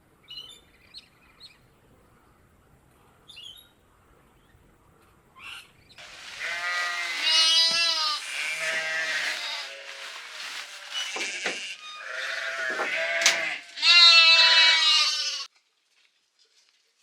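Sheep or goat-type livestock bleating loudly, several long wavering calls in a row that stop abruptly near the end. A few faint bird chirps come before the bleating.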